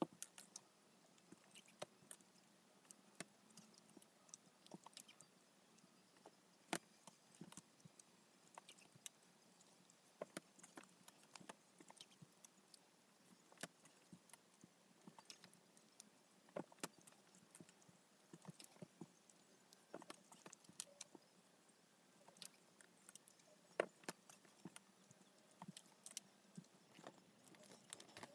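Hand saddle stitching of a leather strap: needles pushed through the stitching holes and thread drawn tight, giving faint, irregular small clicks and taps with soft handling rustle.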